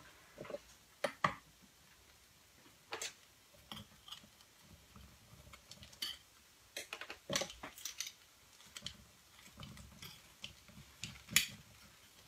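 A knife tapping and scraping against a shallow metal künefe plate in scattered, irregular clicks as shredded kadayıf dough is pressed down and spread in it.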